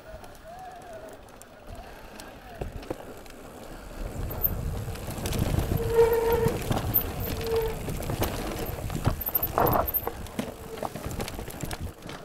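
Mountain bike riding over a rough trail. The tyre rumble and rattling knocks get louder about four seconds in, with two short squeals around the middle.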